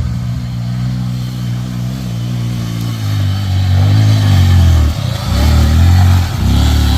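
Honda CRF150L's single-cylinder four-stroke engine running, steady for the first few seconds. From about three seconds in it revs up and drops back again several times.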